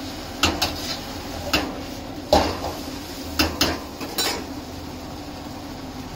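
Flat metal spatula clanking and scraping against a steel wok as egg fried rice is stirred and tossed. About eight sharp clanks come in the first four seconds or so, the loudest midway, then the stirring stops.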